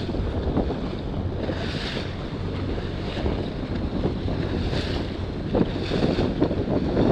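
Wind buffeting the microphone over choppy open water, with waves splashing and hissing every second or two.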